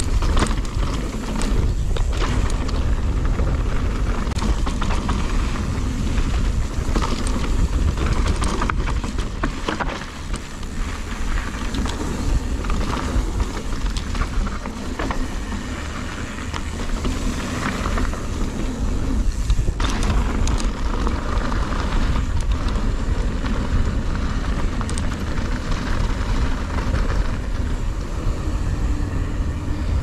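Nukeproof Mega 290 mountain bike descending a downhill trail: a steady low rumble of wind and tyres on dirt, with scattered knocks and rattles from the bike.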